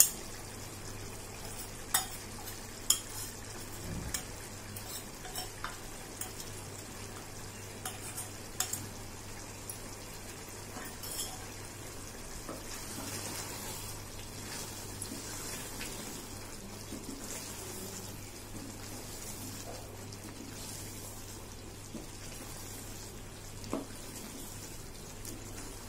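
Wooden spoon stirring ground coconut and garam masala into mutton in a pressure-cooker pot, with a steady sizzle of frying. The spoon knocks sharply against the pot several times in the first half, the loudest knocks about two and three seconds in.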